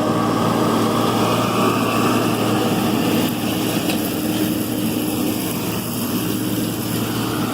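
John Deere 4440 tractor's six-cylinder turbo diesel running steadily under load as it pulls a New Holland Roll-Belt 450 round baler through hay. The sound eases slightly about three seconds in.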